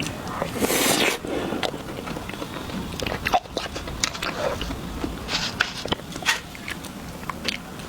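Close-miked eating of chocolate ice cream: bites and wet mouth clicks, with a few short louder bites.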